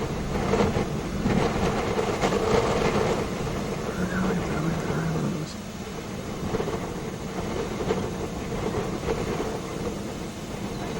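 Strong thunderstorm inflow wind buffeting a car, heard from inside the cabin as a gusting rush that rises and falls, over a steady low hum.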